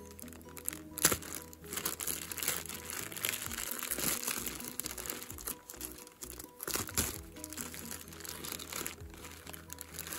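A clear plastic bag crinkling and crackling irregularly as it is handled and pulled open to take a respirator out, with sharp crackles about a second in and near seven seconds. Quiet background music plays underneath.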